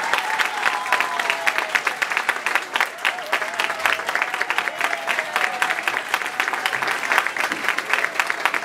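Audience applauding in a school hall: many hands clapping in a dense, steady patter.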